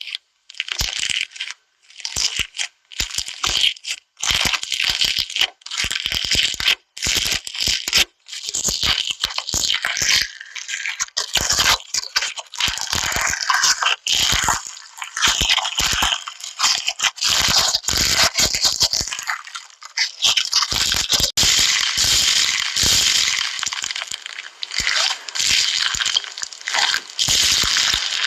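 Slime being squeezed and worked, giving dense crackling and clicking. It comes in short spells with brief pauses at first, then runs almost without a break from about ten seconds in.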